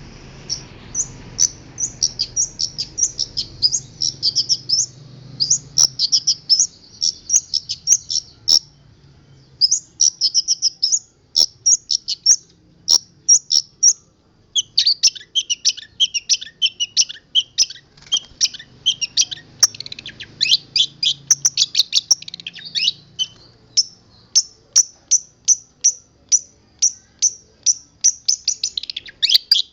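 Long-tailed shrike singing a fast, varied song of rapid high chirps packed with imitated calls (isian), broken by a few short pauses; about halfway through, the phrases dip lower for several seconds.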